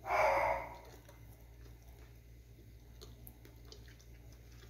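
A person chewing a mouthful of soft cake with closed-mouth eating sounds, faint clicks of lips and tongue. It opens with a short breathy noise lasting under a second.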